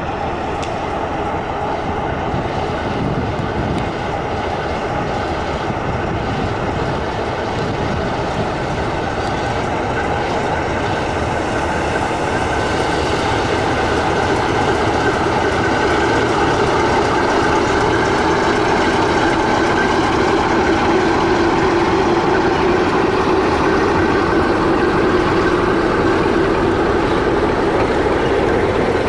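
A class 060-DA six-axle diesel-electric locomotive's engine running under load as it pulls away with an intermodal freight train and passes close by. From about halfway the loaded container wagons roll past with a steady rumble and clickety-clack of wheels, slightly louder than before.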